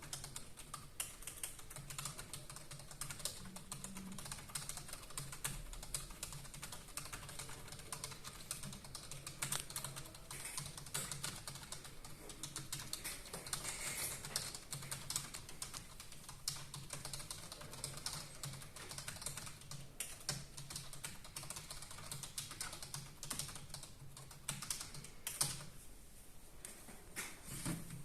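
Fast, continuous touch-typing on a computer keyboard: a dense, uneven stream of key clicks from a typing speed test running at about 94 words per minute.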